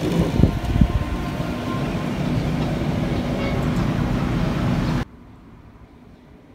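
Steady outdoor city hum heard from a high balcony, with wind buffeting the microphone in the first second. About five seconds in it cuts off suddenly to a much quieter background.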